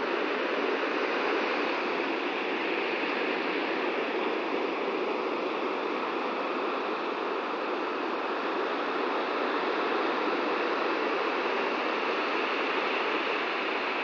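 Ocean surf breaking and washing up the beach, a steady, even rush of water noise.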